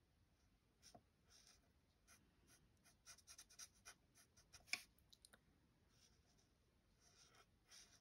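Faint strokes of a Stampin' Blends alcohol marker nib colouring on card stock, a series of short scratchy strokes, thickest in the middle with one sharper tick just before five seconds in.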